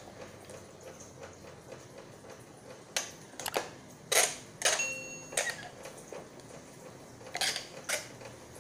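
Click-and-chime sound effects of a subscribe-button pop-up: several sharp clicks, with a short bright ringing chime about five seconds in, over faint steady hiss.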